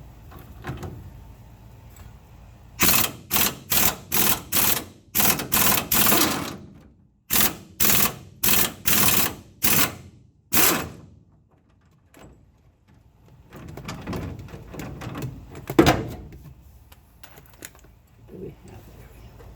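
Power wrench run in about fourteen short, loud bursts, backing out the upper shock-absorber mounting bolt of a 1970 VW bus. Then a quieter stretch of rattling and handling with one sharp knock.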